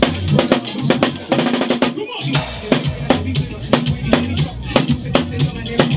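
Live drum kit played with sticks: a steady beat of kick drum, snare and cymbal hits over a heavy bass line. Everything stops for a moment about two seconds in.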